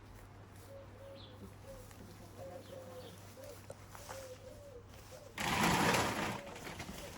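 A pigeon cooing softly in repeated low phrases. Near the end comes a loud rattling rustle lasting about a second.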